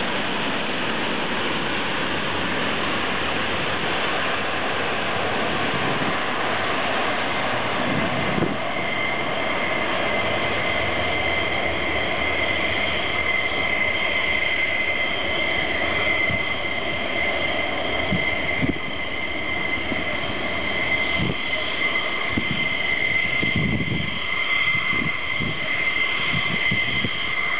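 Steady jet engine roar from a KC-10 tanker's General Electric CF6 turbofans as it rolls out along the runway after landing, mixed with taxiing A-10s' engines. About eight seconds in, a steady high whine joins the roar and lasts to the end. A few low thuds come in the second half.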